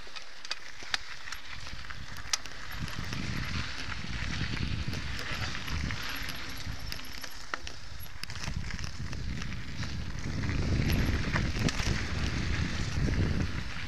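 Mountain bike rolling down a dry dirt singletrack: tyre noise on the dirt with scattered sharp clicks and rattles from the bike. A low rumble builds about ten seconds in and stays loud to near the end.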